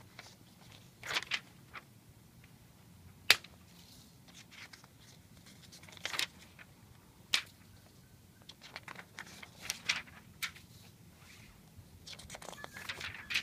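A stack of paper sheets being handled and flipped, rustling and crinkling in scattered short bursts, with one sharper snap about three seconds in.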